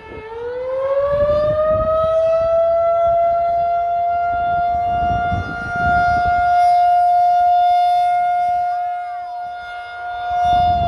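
Federal Signal 2001-SRN outdoor warning siren sounding the attack signal during a test, very loud. Its pitch dips low at the start, climbs over about two seconds, then holds a steady high tone that swells and fades slightly in loudness.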